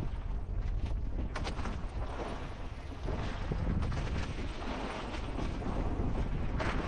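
Wind buffeting the microphone: a dense low rumble with a few sharp knocks about a second in.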